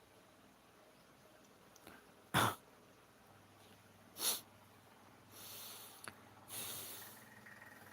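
Two short, sharp sneezes about two seconds apart, followed by two longer breathy huffs.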